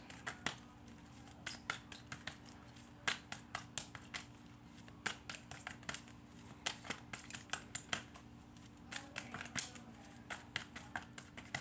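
Tarot cards being shuffled and handled: irregular clusters of quick, crisp card clicks and snaps.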